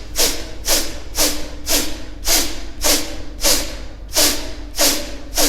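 Rapid, forceful kapalabhati-style exhalations through the nose, about two sharp puffs a second in an even rhythm, each with a brief low grunt. They are blowing the rinse water and loosened mucus out of the nasal passages after jala neti.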